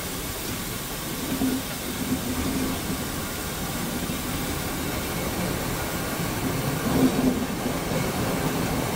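Passenger train running along the track, heard from aboard: a steady rolling noise from the carriage with a low hum that comes and goes.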